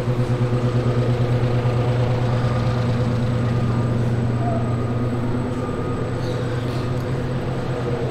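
Steady machine hum from the hangar's large ceiling fans, with a quick even pulsing in its loudness through the first few seconds.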